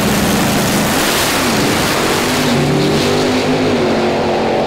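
Two drag race cars' engines revving hard on the start line, then launching and accelerating down the strip, the engine pitch climbing in steps as they pull away.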